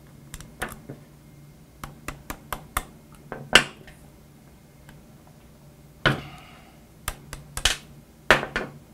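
Irregular sharp metallic clicks and taps as a steel trigger-group retaining pin is worked out of a High Standard semi-automatic shotgun receiver; the pin is finicky to remove. The loudest click comes a little over three seconds in, with a cluster of further clicks in the second half.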